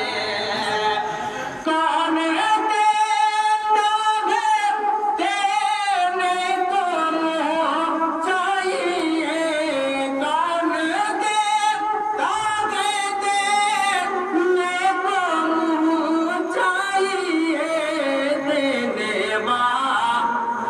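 Naat, an Urdu devotional song in praise of the Prophet, sung with long wavering melodic lines and no instrument heard. The singing grows louder about two seconds in.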